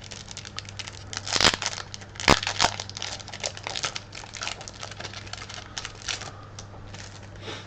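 Foil wrapper of a Pokémon TCG booster pack crinkling and crackling as it is torn open and handled, with sharper crackles about a second and a half in and again just after two seconds.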